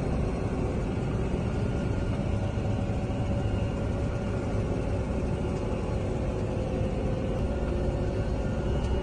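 Tractor engine running steadily, heard from inside the cab while driving across a field: an even drone with a low rumble and a steady hum.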